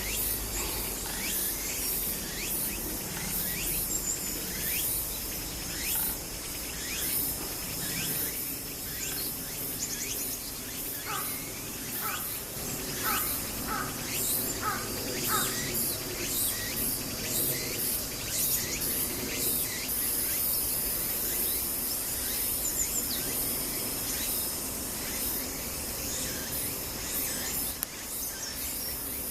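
Birds calling in short, falling notes, with a run of them at about two a second through the middle, over a steady high-pitched chirring of insects that grows stronger in the second half.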